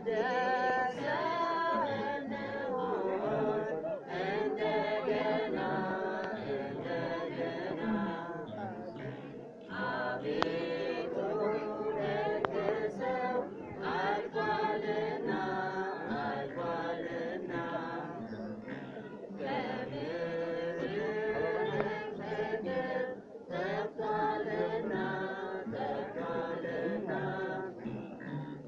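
Unaccompanied a cappella singing, a sustained melodic vocal line with short pauses for breath.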